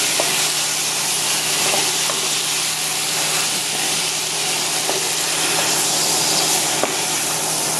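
Chinese broccoli and oyster sauce sizzling steadily in a hot pan, with a few light clicks and scrapes as a wooden spatula stirs it.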